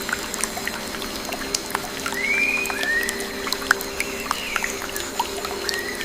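Forest ambience: several birds give arched whistled notes, each rising then falling, over a steady trickle of water with many scattered small clicks and drips.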